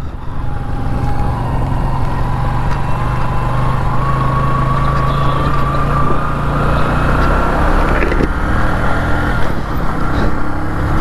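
Motorcycle engine running while the bike is ridden, heard from on board. Its note climbs slowly as the bike gathers speed, then changes about eight seconds in.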